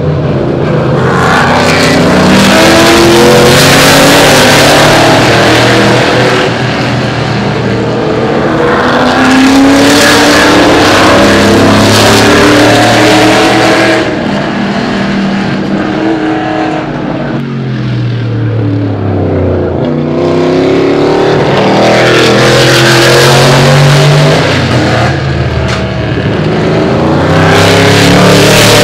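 Vintage Trans-Am race cars' V8 engines as the cars pass in several loud waves. The engine notes fall and rise in pitch as each car goes by.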